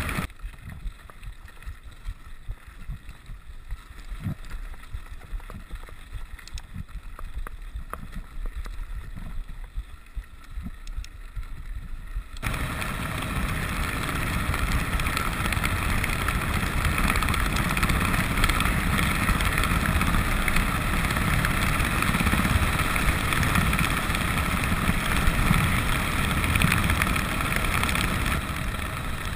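Rigid 29er mountain bike riding fast on a gravel road: rumble and rattle of the tyres over gravel, with wind on the microphone. For about the first twelve seconds it is quieter, with scattered knocks. Then it suddenly becomes much louder, even wind and gravel noise.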